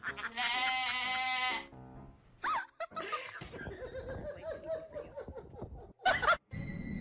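Background music with a cat's short meows, one about two and a half seconds in and another near the end.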